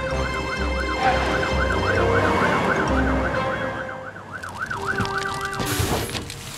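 Cartoon fire engine siren wailing in a fast, even up-and-down warble, about four swings a second, over a low rumble. The siren stops near the end and a short rush of spraying noise follows as the hose comes on.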